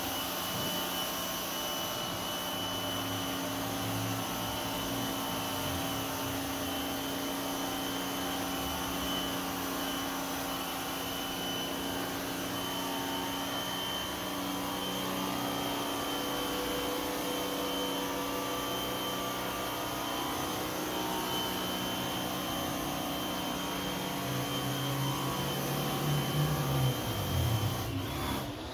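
Electric pressure washer running steadily, its motor-driven pump droning under the hiss of the water jet sprayed onto a car's body. It grows louder and less even for a moment near the end.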